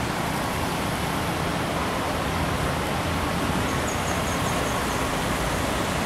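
Steady rushing outdoor noise with no break, with a quick run of about seven faint high chirps about four seconds in.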